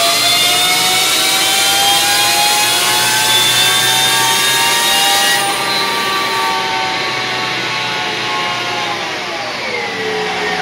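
2016 Victory Empulse TT electric motorcycle on a chassis dyno: the electric drive's whine, a stack of tones climbing slowly as the rear wheel spins up on the roller, over a rushing hiss. The hiss eases about five seconds in, and near the end the whine falls steeply as the wheel coasts down at the end of the pull.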